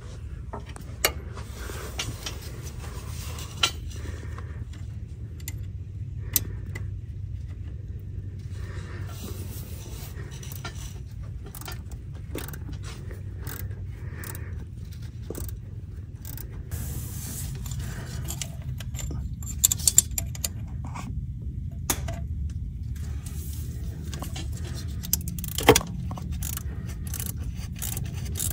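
Hand tools working a small nut free. There are light, irregular metallic clicks, taps and scrapes, with a few sharper clicks about a second in and again near the end, over a steady low hum.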